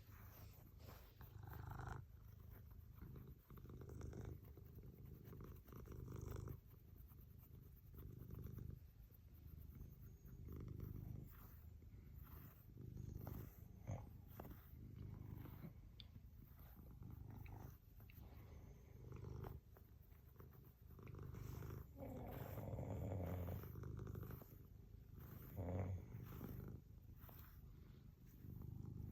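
A house cat purring softly while it is brushed, the purr swelling and fading with each breath, with short brush strokes through its fur.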